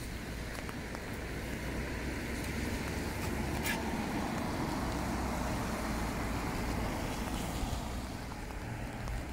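A car driving past on a wet street, its tyre hiss swelling over a few seconds and then fading, with rain falling throughout.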